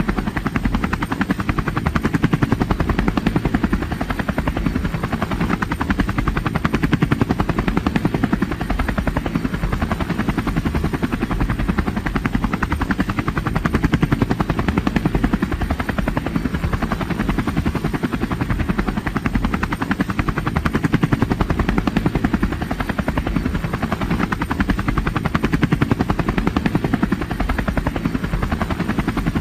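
Helicopter rotor blades chopping in a fast, steady beat over the engine's running, holding constant without approaching or receding.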